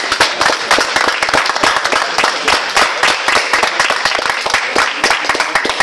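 A small crowd of spectators applauding: dense, steady hand-clapping that stops near the end.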